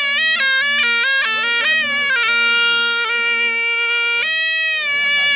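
Surnai, a Rajasthani folk double-reed pipe, playing a melody with quick ornamented turns, then holding one long note. It breaks off briefly about four seconds in and picks up again near the end.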